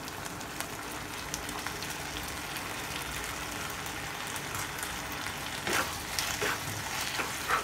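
Steady sizzle of penne and white sauce heating in a non-stick wok on a gas flame. About six seconds in, a wooden spatula stirs through the pasta with a few short scraping strokes.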